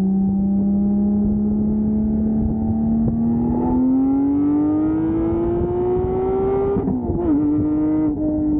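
2020 Porsche 718 Spyder's naturally aspirated 4.0-litre flat-six pulling hard under acceleration, its exhaust note climbing steadily for about seven seconds. Then a quick upshift drops the revs, and the note holds lower and starts to ease off.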